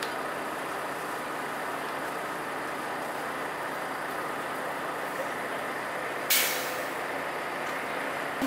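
Heavy truck engine running steadily, with one short, sharp hiss of released air from its air brakes about six seconds in.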